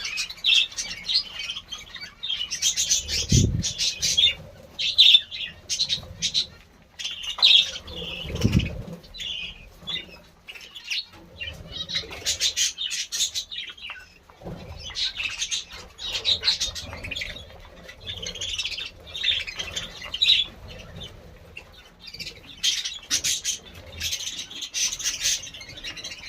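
Budgerigars chirping and chattering in rapid bursts, with two low thumps, about three seconds in and again about eight seconds in.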